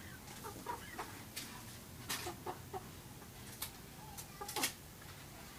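Chickens clucking in short, scattered calls, with a few sharp knocks, the loudest about four and a half seconds in.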